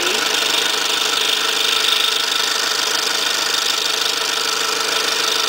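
Scroll saw running steadily, its small 2/0 blade cutting through a stack of three layers of 1/8-inch plywood.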